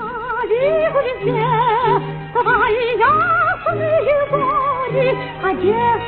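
An operetta song: a woman's voice singing with wide vibrato over orchestral accompaniment.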